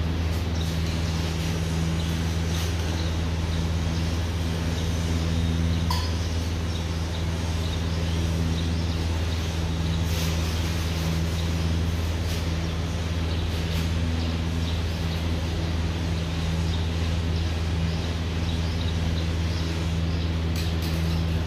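Steady low electric machine hum, with a single light glassy clink about six seconds in.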